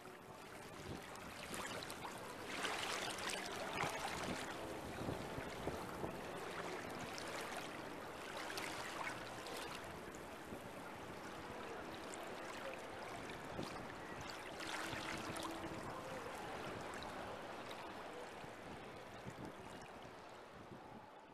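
Choppy harbour water lapping and splashing, a steady wash of noise that swells into stronger surges every few seconds.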